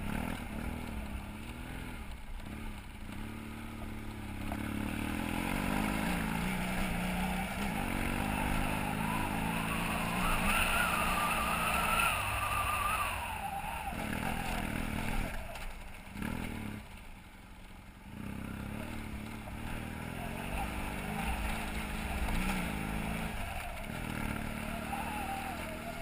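BMW F800GS parallel-twin engine running under changing throttle on a dirt road climb, its pitch rising and falling with gear and speed, dropping away for a moment about two-thirds through.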